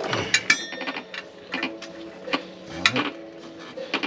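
Metal clinks and knocks as a bolt and washers are worked by hand into the lower mount of a rear gas shock absorber on a van's axle, with one ringing metallic clink about half a second in and several duller knocks after it.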